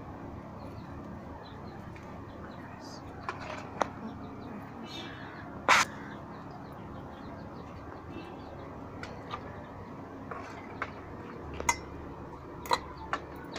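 Knife slicing fresh red chilli peppers held in the hand over a metal bowl, with a few scattered sharp clicks over steady outdoor background noise; the loudest, about halfway through, is a short harsh sound that may be a crow cawing nearby.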